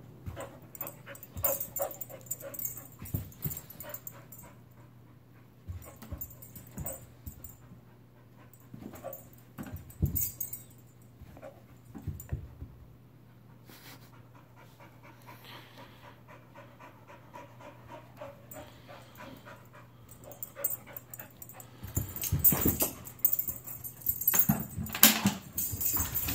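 Dog panting and whimpering, stressed and eager as she waits on an automatic ball launcher, with scattered knocks and rustles as she moves about. The sounds get louder and busier near the end.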